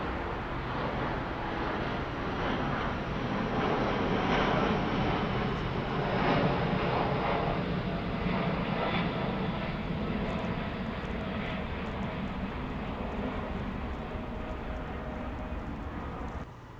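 Departing twin-engine widebody jetliner climbing out overhead, its jet engine noise steady and broad, loudest about four to seven seconds in and then slowly fading. The sound drops off abruptly just before the end.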